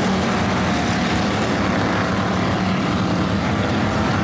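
Street stock race cars running at speed around a dirt oval, a steady blended engine drone from the field.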